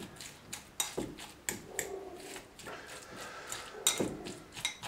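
Metal utensil mashing potato and margarine in a ceramic bowl, with a dozen or so sharp clicks at irregular intervals as it knocks against the bowl.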